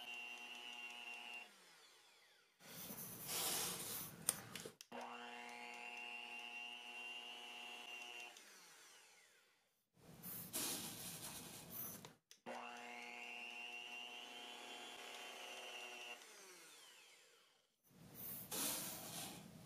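Electric hand mixer whipping egg whites into meringue in a glass bowl. A steady motor whine spins up and winds down three times, alternating with short, louder, noisier stretches of the beaters churning.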